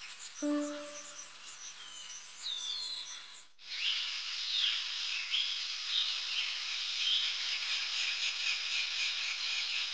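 Savanna nature ambience: descending whistled bird calls with a low ringing tone struck once and fading. About three and a half seconds in it cuts abruptly to a dense, steady chorus of insects and chirping birds.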